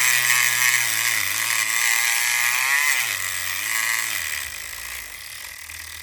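Southord E500XT 4.5-volt electric pick gun buzzing, its needle hammering the pins of a lock under light tension while the lock sits in a false set. The motor's pitch dips and recovers several times as it loads up, and the buzz grows quieter over the last couple of seconds.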